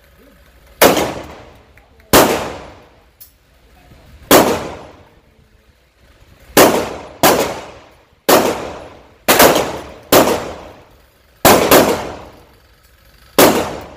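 Semi-automatic pistol fired about eleven times at an uneven pace, some shots in quick pairs. Each crack is followed by a long echo off the indoor range's walls.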